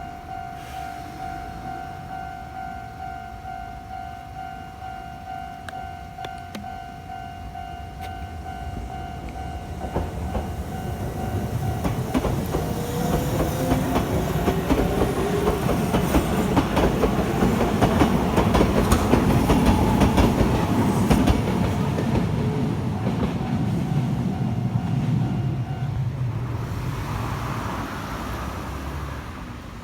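Japanese level-crossing alarm ringing with its steady repeating ding while a Kintetsu Nagano Line electric train passes over the crossing, its wheels clicking over the rail joints. The train grows loud around the middle, the alarm stops a few seconds before the end, and the train noise then fades away.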